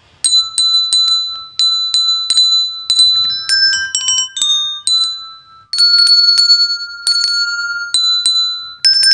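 Small coloured handbells, each tuned to one note, rung in turn to pick out a simple melody. The strikes come about three a second, each leaving a clear ringing tone, and the pitch steps from note to note as the bell being rung changes.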